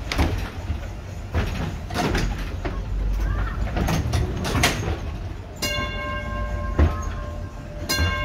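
Vintage streetcar rumbling slowly along the track with irregular clanks and knocks from the wheels and car body. A bell is struck twice, about two thirds through and again near the end, each stroke ringing on and fading.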